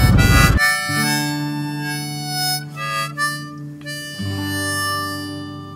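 Ride noise from the motorbike cuts off about half a second in and gives way to background music led by harmonica, playing long held chords.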